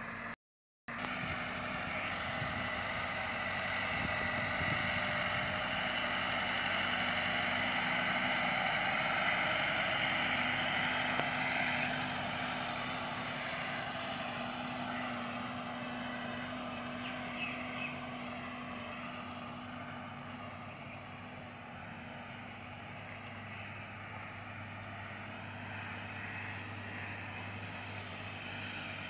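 Massey Ferguson 375 tractor's four-cylinder diesel engine running steadily under load while pulling a laser land leveller through the soil. The sound cuts out completely for a moment just under a second in. It then grows louder as the tractor passes close and fades as it draws away.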